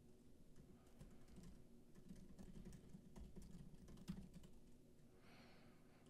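Faint typing on a computer keyboard: scattered soft keystrokes as a short command is typed and entered.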